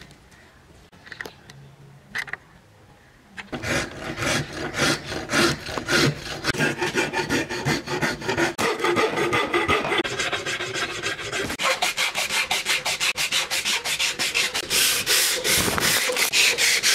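A steel rasp scraping over a wooden sword-handle block clamped in a vise, in quick, repeated back-and-forth strokes that start about three and a half seconds in, after two light knocks. Toward the end a strip of abrasive sanding belt is rubbed back and forth across the wood.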